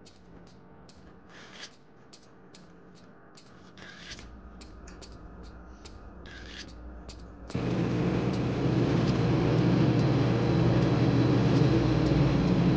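Soft eating noises from a cup of instant noodles: short clicks and slurps as noodles are eaten and the broth is drunk. About seven and a half seconds in, a loud steady rumbling noise starts abruptly and takes over.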